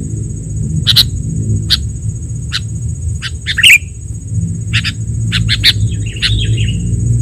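Recorded sooty-headed bulbul (kutilang) calls: sharp, short chirps in quick irregular succession, with a brief warbling phrase near the end. They sit over a steady low rumble and a thin, steady high tone.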